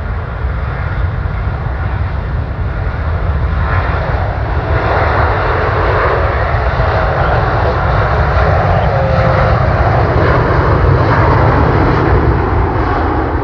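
Airbus BelugaXL's two Rolls-Royce Trent 700 turbofans at takeoff power: a steady jet roar with a deep rumble, swelling from about four seconds in and growing slowly louder.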